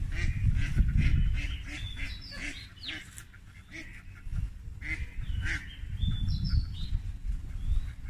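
Ducks on a pond quacking and calling in short, repeated calls, with a few calls that slide up and down in pitch, over a steady low rumble.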